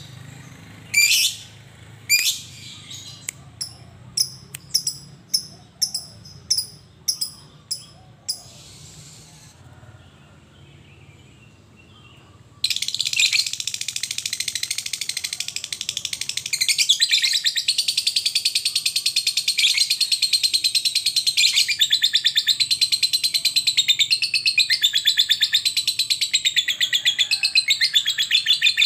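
Lovebird calling. It gives short, sharp, high chirps, about one a second and then faster, falls quiet for a few seconds, and then, about halfway through, breaks into a long unbroken rapid chattering trill, the 'ngekek' song, which gets louder a few seconds later.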